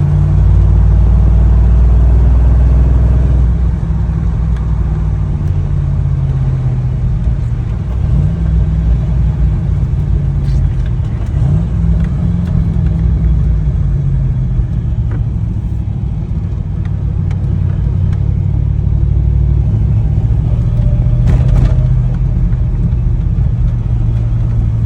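Chevrolet C5 Corvette V8 engine running as the car is driven, its pitch rising and falling a few times. The car logs code P0300, random misfire, and the owner says it misfires under load.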